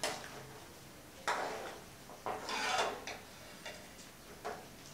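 A slotted spoon knocking and scraping against the side of an aluminium pot while stirring vegetables into the broth: several short clinks, with a longer scrape near the middle.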